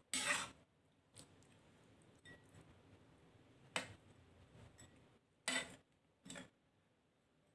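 Ladle scraping and knocking against the side of an electric wok while stirring a simmering curry: a few short, sharp scrapes, the loudest right at the start.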